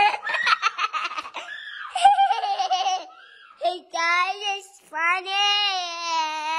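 A child's voice laughing in quick bursts, then letting out long, drawn-out high-pitched cries, each held for a second or two.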